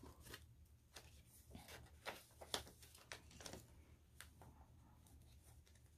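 Faint rustling and light taps of paper and card as the pages of a handmade paper journal are handled and turned, a dozen or so small scattered sounds over a low steady hum.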